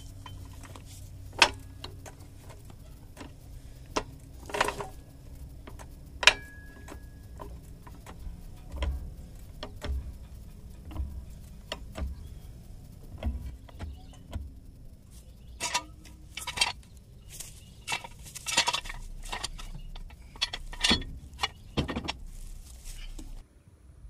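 Hydraulic floor jack being pumped by its long handle to lift a vehicle: scattered sharp metal clanks and clicks from the handle and jack, with denser clattering in the last third.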